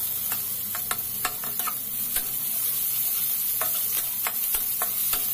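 Chopped onion sizzling in hot oil in a kadhai on medium flame while a spatula stirs it, with scattered clicks and scrapes of the spatula against the pan.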